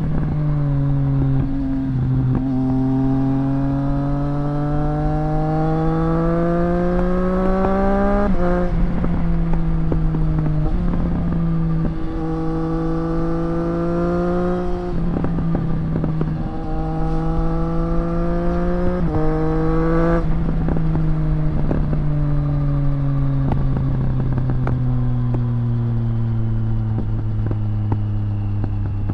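2024 Triumph Street Triple RS's 765 cc inline-three running through a Zard titanium exhaust under way. The engine note climbs to an upshift about eight seconds in, holds fairly steady through another shift near the middle, then falls gradually as the bike slows. Wind rushes over the microphone throughout.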